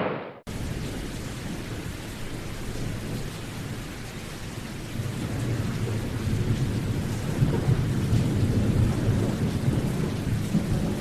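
Steady heavy rain, with a low rumble under it that grows louder about halfway through.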